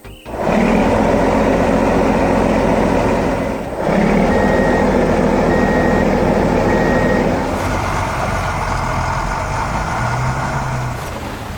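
Heavy truck engine running steadily, with three short high back-up alarm beeps about a second apart partway through.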